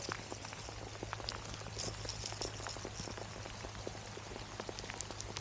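Steady rain pattering, many small drop hits landing irregularly, with a steady low hum underneath.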